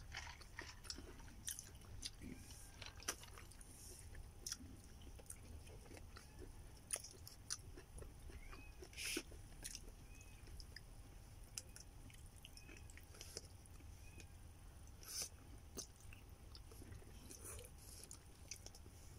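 A person eating spaghetti: faint chewing and mouth sounds, with scattered short clicks of a metal fork against a plastic takeaway tub.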